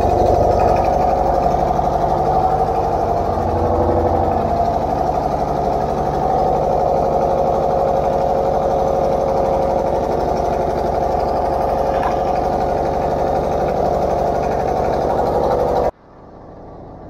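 Isuzu Forward truck's diesel engine running steadily with a fast, even clatter of firing strokes, then stopping abruptly near the end.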